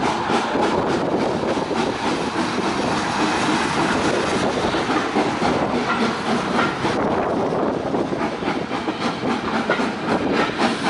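Heritage railway carriage running along the track, heard from an open carriage window: a steady rumble and rush, with the wheels clicking over rail joints, most plainly near the end.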